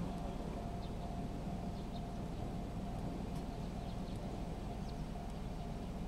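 Japanese level-crossing alarm ringing in a steady run of faint repeated tones, over a low background rumble, with short bird chirps here and there.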